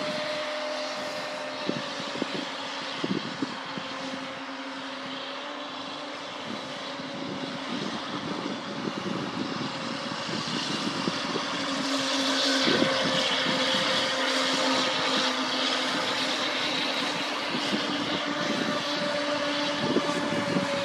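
Radio-controlled model speedboats running flat out across the water: a steady motor whine that wavers slightly in pitch, over the hiss of spray. It gets louder about halfway through as a boat passes closer.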